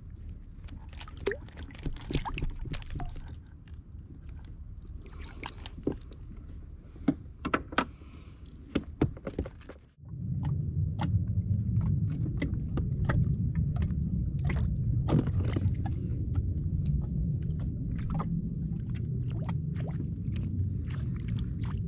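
Sounds of a kayak on the water: a low rumble of water and wind with scattered sharp knocks and clicks. About ten seconds in it cuts off abruptly and comes back as a louder, steady low rumble, still dotted with small clicks.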